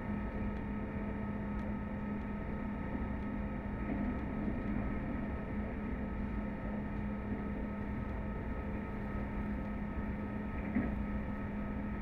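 Steady running noise of a moving train heard from inside the carriage: a constant rumble with a steady hum, and one short knock near the end.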